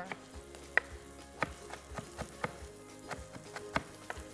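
A knife chopping on a cutting board, irregular sharp knocks about two to three a second, over soft background music.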